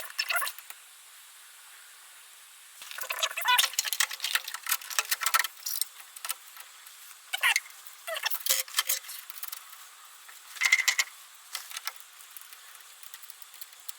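Hand work on a small engine: bursts of light clicks and rattles from parts and tools being handled, with a short quiet spell about a second in.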